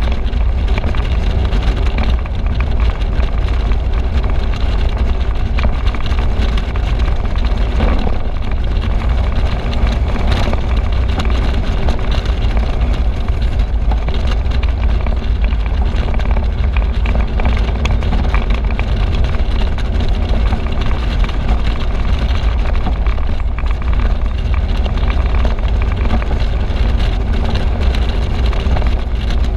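Steady wind rush and road noise from a convertible driving with its top down, with a heavy low rumble of wind on the microphone.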